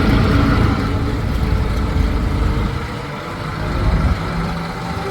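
Diesel engine of heavy earthmoving or farm machinery running with a steady low rumble, easing off a little about three seconds in.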